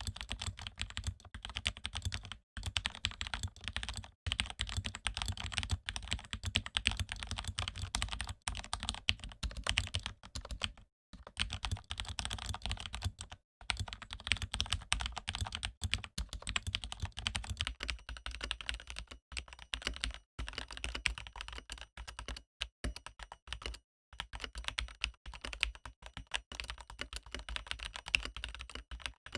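Mechanical keyboard with lubed Cherry MX Red linear switches being typed on steadily, a dense run of key clacks broken by a few short pauses.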